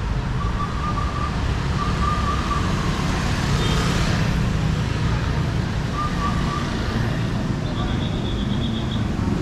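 Busy street ambience of motorbike and car traffic with a steady low rumble and voices, a hiss that swells and fades about four seconds in. Short trains of rapid high electronic beeps sound three or four times.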